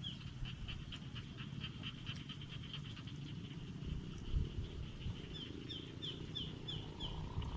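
Short high chirps from a small animal repeating rapidly, about four a second, in runs, over a steady low rustling with a few soft thumps.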